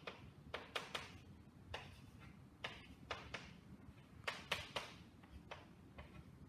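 Chalk writing on a blackboard: a string of irregular, sharp taps and short scratches as the chalk strikes and drags across the board, over a faint low room hum.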